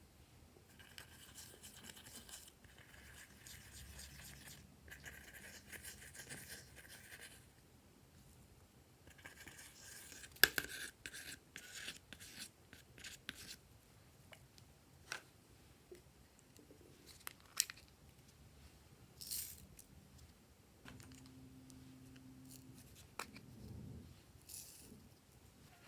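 Quiet hands-on sounds of slime and craft supplies being handled: stretches of soft scraping and rustling, then scattered sharp clicks and taps. A short low hum comes near the end.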